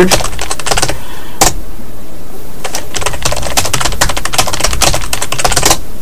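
Typing on a computer keyboard: an irregular run of key clicks, with a couple of louder keystrokes.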